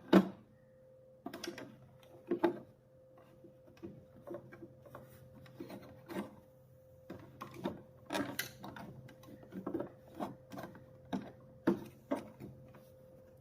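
Irregular clicks, taps and short scraping strokes as parts of a sewing machine are brushed and wiped clean by hand, over a faint steady hum.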